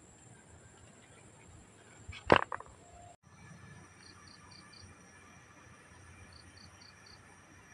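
Faint cricket chirping in short trills of about four chirps each, repeated a few times. A single sharp clatter sounds about two seconds in and is the loudest thing heard.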